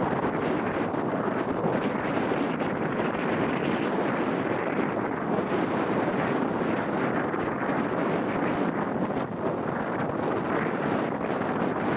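BAe 146-300's four turbofan engines at taxi idle, a steady rushing noise, with wind buffeting the microphone.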